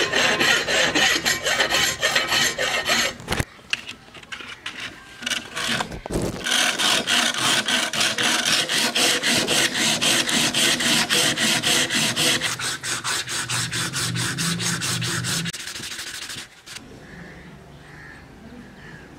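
A flat hand file rasping in quick strokes across a cast brass collar held in a vise. After a short pause, a strip of sandpaper is pulled fast and evenly back and forth around a steel blade, polishing it, before the sound drops away near the end.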